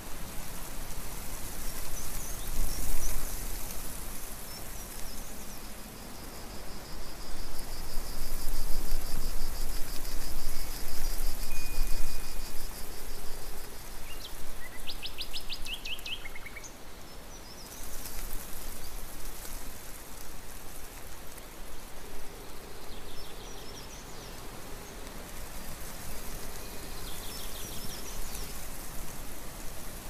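Wind rustling through tree foliage, swelling into a stronger gust in the middle, with a few birds chirping and trilling about halfway through.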